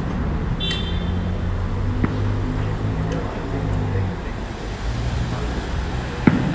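Steady hum of road traffic with a passing vehicle's engine, a faint firework pop about two seconds in and a loud firework bang near the end.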